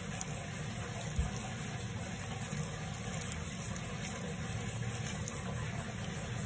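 Hand scraping and digging through soft soil, heard faintly over a steady low rumble and hiss, with a small thump about a second in.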